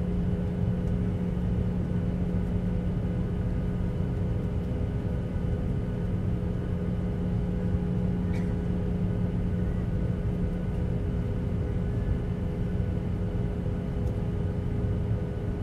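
Steady airliner cabin noise from inside the plane: the jet engines' drone and rushing airflow with a constant low hum.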